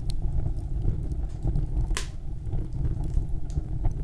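Steady low rumbling noise with one sharp click about two seconds in.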